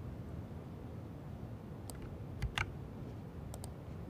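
About five sharp keystroke clicks on a laptop keyboard in the second half, as code is pasted into an editor, over a low steady room hum.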